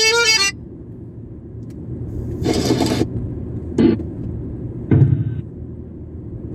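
A car driving: a steady low rumble of engine and road, with a few short, louder bursts of noise about two and a half seconds and five seconds in.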